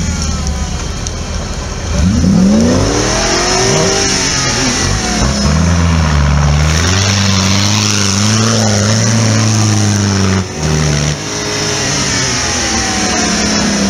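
Off-road 4x4's engine revving hard on a steep dirt climb. The revs sweep up sharply about two seconds in, then hold high and waver, with a brief drop in revs around ten seconds in before they pick up again.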